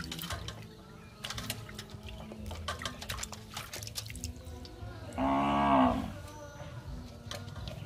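Water splashing and dripping in a metal basin as hands wash leafy greens and cucumbers, with the splashes and clicks of the handling. About five seconds in, a short animal call with a rising-then-falling pitch, under a second long, is the loudest sound.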